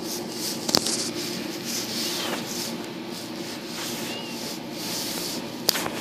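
Steady rubbing and scratching noise, with a sharp click about a second in and another near the end, and a few faint short chirps.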